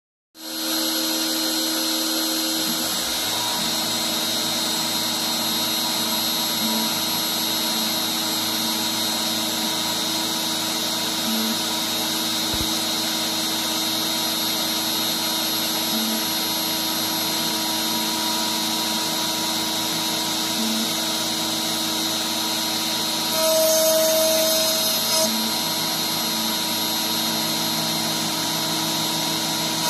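Compact router mounted as a CNC spindle, running at high speed as its bit mills a truss rod channel into a wooden guitar neck blank: a steady whine over cutting noise. The cutting grows louder for a couple of seconds near the end.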